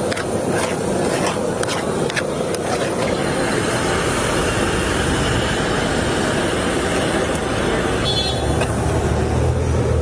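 Busy street noise with passing traffic. A few sharp taps sound in the first couple of seconds, and a low engine hum comes in near the end.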